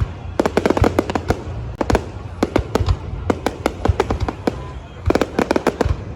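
Fireworks display: rapid volleys of sharp bangs and crackling pops, coming in dense clusters about half a second in, around three seconds, and again around five seconds.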